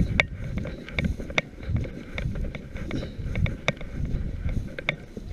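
Irregular sharp crackling clicks, about two a second, as of dry brush and grass being pushed through, over a low rumble of wind on the microphone.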